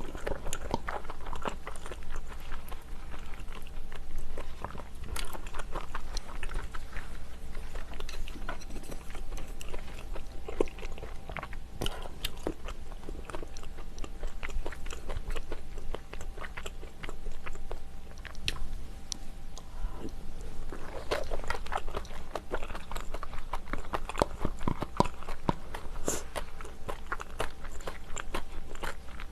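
A person eating seafood stew: chewing, biting and crunching, with many small clicks and crackles.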